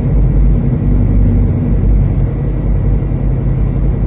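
Steady low rumble of a semi-truck's diesel engine and road noise while driving.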